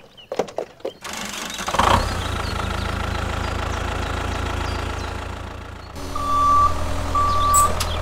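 Tractor engine sound running steadily after a few clicks in the first second; near the end the engine note shifts and two short reversing beeps sound, signalling the tractor backing up.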